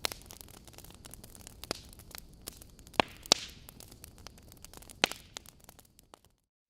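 Wood fire burning in a fireplace: logs crackling over a low hiss, with sharp pops, the two loudest close together about three seconds in. The sound drops out to near silence shortly before the end.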